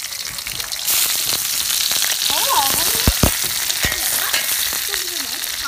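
Whole climbing perch frying in hot oil in a wok, a steady sizzle that gets louder about a second in as another fish goes into the oil. A few dull knocks a little past halfway.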